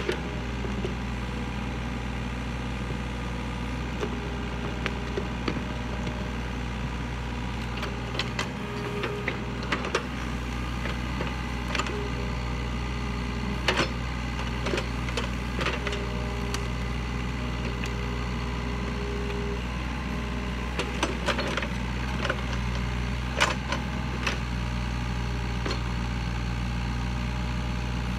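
Yanmar mini excavator's diesel engine running steadily, with a whine that comes and goes. Scattered clicks and knocks come from the bucket digging in soil and roots around a stump.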